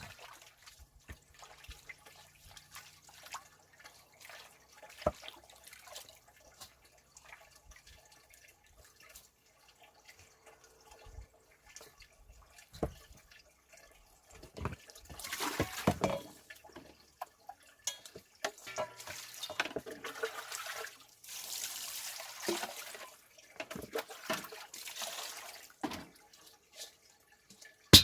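Water splashing and dripping with small knocks of handling, in a few longer stretches of running or pouring water past the middle.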